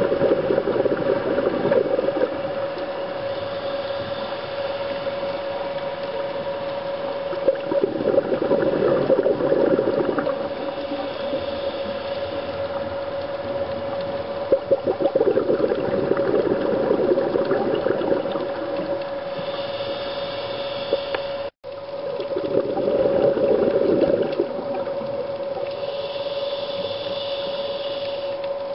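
Scuba diver breathing through a regulator, heard underwater: a gurgle of exhaled bubbles about every seven seconds, with a thin hiss of inhalation between, over a steady hum. The sound drops out for an instant about two-thirds of the way through.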